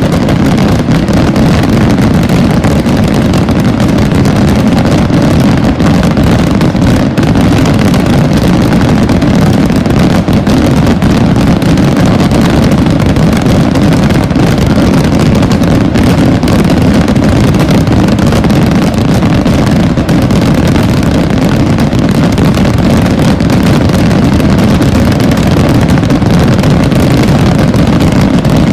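A massed barrage of voladores, Asturian gunpowder skyrockets, thousands bursting almost at once so that their bangs run together into one loud, continuous rumble with no break.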